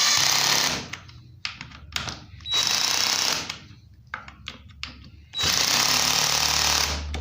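Cordless drill running in three bursts, driving screws in; the last burst runs about a second and a half.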